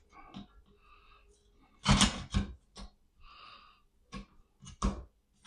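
Clicks and knocks of AR-15 handguard parts being handled and pushed into place on the rifle, the loudest a short scraping knock about two seconds in.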